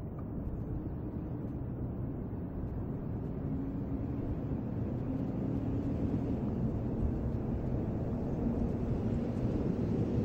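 Low, steady distant engine rumble with a faint wavering hum in it, slowly growing louder.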